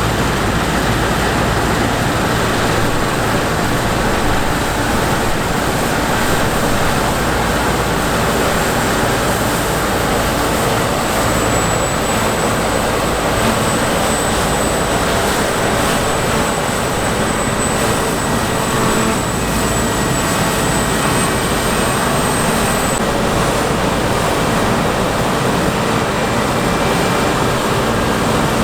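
Heavy grain-harvest machinery running steadily, a constant engine and machine noise with no let-up, with a thin faint high whine for several seconds in the middle.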